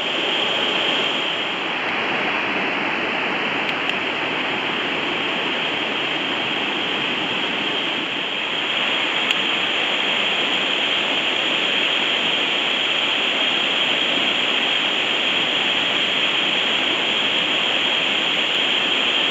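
Creek water rushing, loud and steady.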